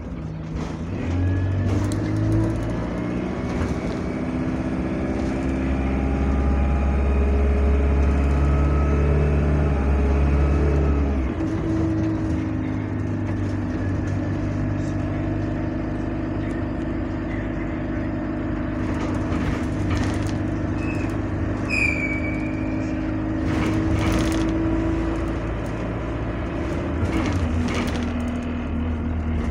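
Bus engine heard from inside the passenger cabin, climbing in pitch as the bus accelerates and loudest just before it settles, about eleven seconds in, into a steady, even run. A few faint clicks and a short high tone come in later.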